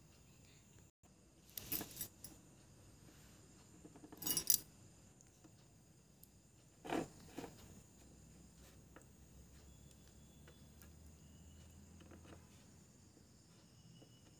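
Book pages being turned and handled: three short paper rustles about two and a half seconds apart, over faint steady hiss.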